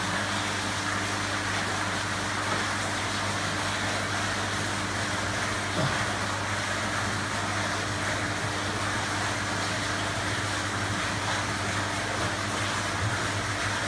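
Steady machine hum with a low electrical drone and an even hiss. A single light knock about six seconds in, as a wine glass is set down on the tank's glass lid.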